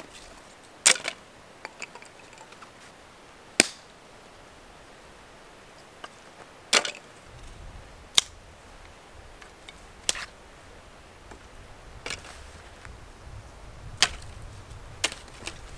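Dry dead sticks being snapped by hand and over a knee for fire kindling: a sharp crack about every two seconds, around eight in all.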